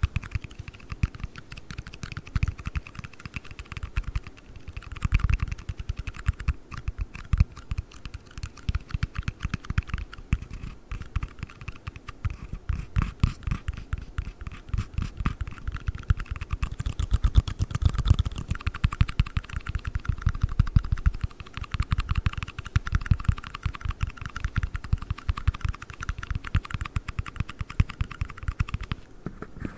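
Fast, dense tapping on a black ring box: many quick clicks with soft low thuds, like rapid typing. It stops near the end.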